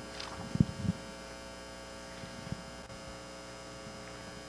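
Steady electrical mains hum, with a few soft bumps and rustles, the clearest a little over half a second in and just before one second, another about two and a half seconds in.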